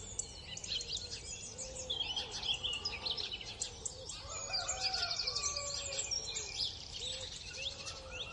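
Birdsong: many small birds chirping and twittering together, with softer, lower-pitched calls repeating underneath.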